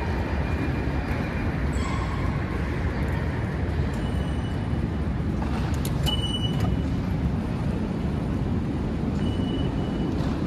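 Steady low rumble of an underground railway station concourse, with short high electronic beeps from the ticket gates, the clearest about six seconds in, as a gate is passed, and another near the end.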